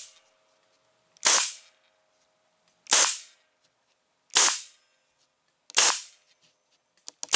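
Staple gun firing quarter-inch staples into a brittle vinyl dash pad: a sharp shot about every second and a half, five or six in all.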